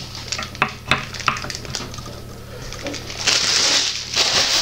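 A few sharp clicks and taps of hard statue parts being handled and fitted, then from about three seconds in, two loud bursts of plastic packaging crinkling.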